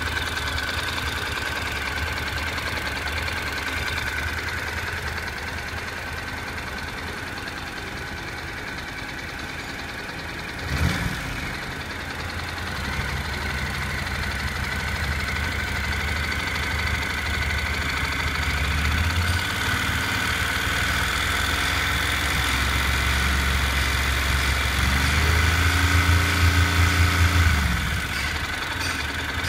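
Honda NC700X parallel-twin engine running at full operating temperature, with a rattling, knocking noise from the right side of the engine that comes only once the engine is hot. A single short knock sounds about eleven seconds in, and the engine grows louder for a couple of seconds near the end.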